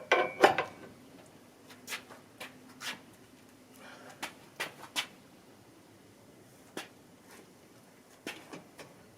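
Knocks and clicks of hands and tools working a manual tire changer and motorcycle wheel, with a cluster of loud knocks in the first second and then single sharp clicks every second or so.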